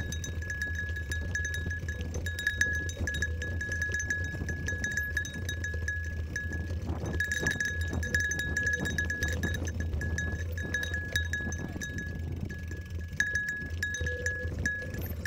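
Mountain bike rattling over a rough dirt trail, with a small bell jingling almost without pause in uneven pulses and a low wind rumble underneath.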